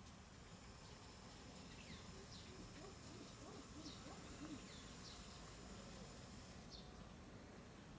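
Near silence with faint bird chirps: short high calls sliding downward, about one a second, over a faint steady high-pitched tone.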